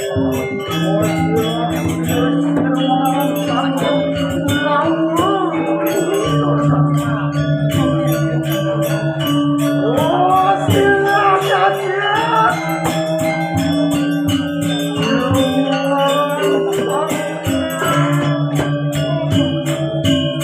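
Balinese gamelan playing: ringing bronze metallophones and gongs hold steady notes over a fast, even clatter of small cymbals.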